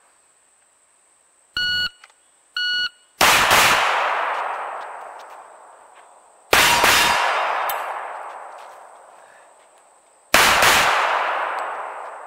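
A shot timer beeps twice. Then a .45 1911 pistol fires three short strings of shots, about three to four seconds apart, each followed by a long fading echo; the gaps are the shooter moving between stations of a box drill.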